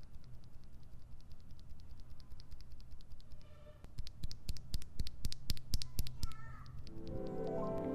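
A JWICK Red linear mechanical keyboard switch, lubed with Krytox 205g0 and filmed, pressed repeatedly by hand. It gives a series of short clacks that come faster and louder about four seconds in.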